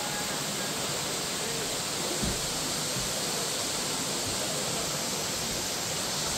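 Waterfall rushing steadily, an even, unbroken wash of falling water, with one brief low thump about two seconds in.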